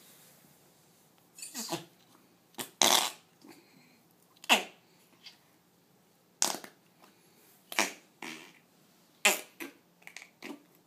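A person making fart noises: about nine short, separate bursts with uneven gaps between them.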